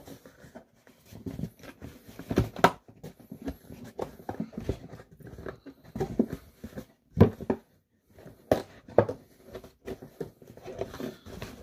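A cardboard takeout box being handled and pushed shut: irregular taps, clicks and short rustling scrapes, with a few louder knocks.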